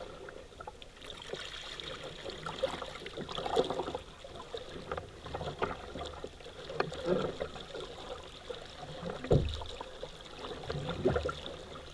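Paddling a small boat on a river: water splashing with each stroke, with scattered knocks and a few heavier low thumps in the second half.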